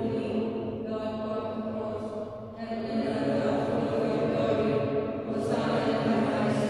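Slow liturgical hymn sung in a chanting style, with long held notes. There is a short break in the phrase about two and a half seconds in.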